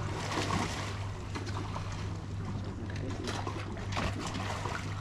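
Water splashing in short surges as barramundi strike at feed pellets on the surface, over a steady low hum.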